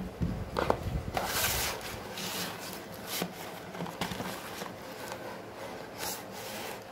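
Hands handling a cardboard snack box on a wooden tabletop: a few light knocks near the start, then rubbing and scraping of cardboard in short bouts, the longest about a second in.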